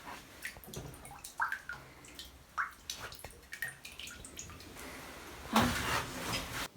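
Water sloshing in a flooded cellar, with scattered drips and small plops, and a louder splash about two-thirds of the way through.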